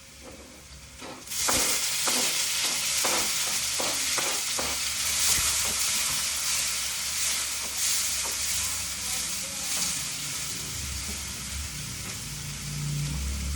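Food dropped into hot oil in a cooking pan, setting off a sudden loud sizzle about a second in that goes on as steady frying. A spatula clicks and scrapes against the pan several times in the first few seconds of frying as it is stirred.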